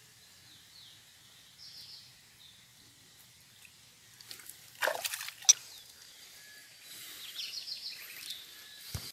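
Pond water splashing and dripping as a hand dips and moves in it, loudest about five seconds in. Birds call in the background with short repeated trills, and a sharp knock comes near the end.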